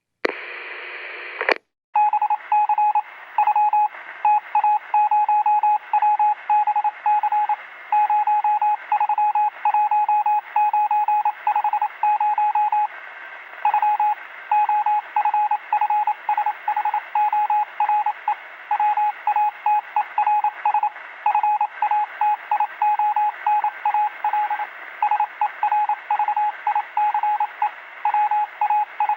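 Morse code sent as a single steady beep keyed in short and long pieces, dots and dashes, over radio hiss. It starts about two seconds in, after a short burst of hiss.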